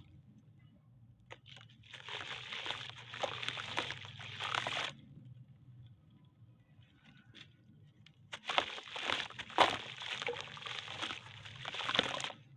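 Sun-dried slabs of red brick soil and sand crumbled by hand, with the crunching grains falling into a tub of water. It comes in two bouts of a few seconds each, with a quiet pause between.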